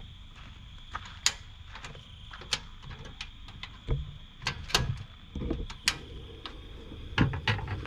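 Sharp clicks and dull knocks as a Coleman single-burner portable stove is worked at its ignition knob until the burner lights, with a saucepan being handled over it.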